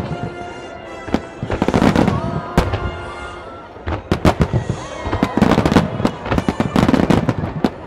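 Aerial firework shells bursting: sharp booms and crackles, spaced out and fading over the first few seconds, then thickening into a dense rapid volley about four seconds in.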